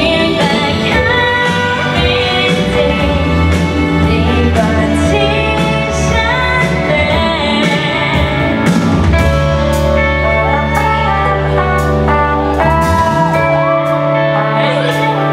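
A woman singing a pop song live into a handheld microphone over loud pop backing music.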